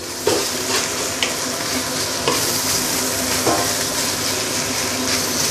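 Fried rice sizzling on high heat in a stainless steel wok while a wooden spatula stirs and turns it. There is a steady sizzle, with an occasional scrape or knock of the spatula against the pan about once a second.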